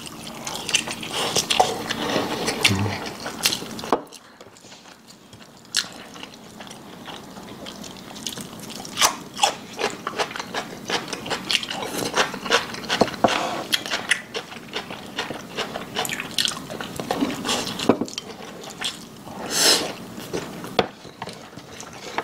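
Close-miked eating sounds of spicy braised pork backbone: wet chewing, lip smacking and sucking as meat is bitten off the bones, a steady run of many short smacks and clicks with a quieter pause about four seconds in.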